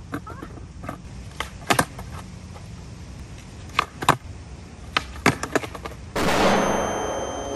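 Skateboard clacking on asphalt as flip tricks are tried: sharp pops and landings in several pairs, the tail snapping down and the board slapping back onto the pavement. About six seconds in, a sudden loud rush of noise starts and slowly fades.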